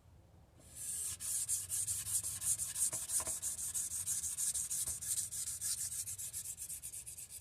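Carbon-steel kitchen knife blade stroked rapidly back and forth on a whetstone, an even run of gritty scrapes several a second, starting about half a second in. The edge is being refined and its bevels balanced after a burr has been raised.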